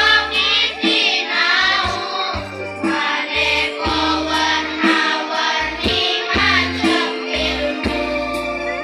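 Girls' primary-school choir singing in unison over instrumental backing with a steady bass line.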